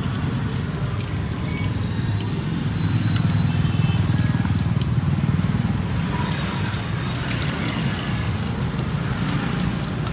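Street traffic going past: a steady engine rumble that swells a few seconds in and then eases off.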